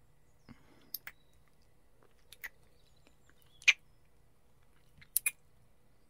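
Close-miked kissing: a series of short lip smacks, several in quick pairs, the loudest a little past halfway.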